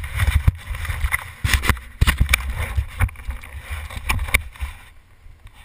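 Yamaha YZ125 two-stroke dirt bike engine running at low speed as the bike rolls over rough ground, an uneven low rumble heard from a helmet camera, with scattered knocks and rattles. It eases off near the end.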